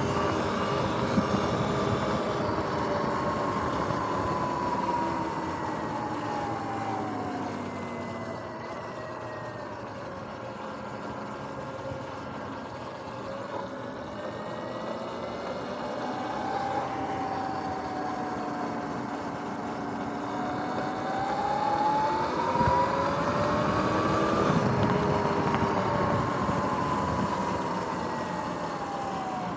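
Sur-Ron X electric dirt bike's motor whining as it rides. The pitch falls as the bike slows about a third of the way in, climbs again as it speeds back up, and drops near the end, over a steady hiss.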